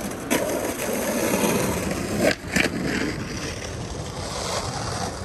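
Steady rushing, rolling noise of a bicycle ride on pavement, with two short louder bursts about two and a half seconds in.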